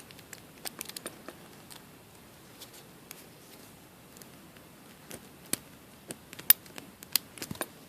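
Light metallic clicks and scrapes of lock picks working the pin tumblers of a Master Lock No. 1 laminated steel padlock, scattered and faint, then busier and louder in the last three seconds as the lock is being opened.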